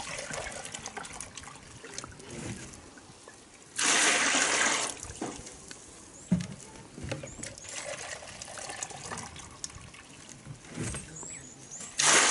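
Water poured from a plastic jerrycan into a plastic jug for about a second, about four seconds in, with light knocks of plastic containers being handled. Near the end, water poured from the jug into a metal basin.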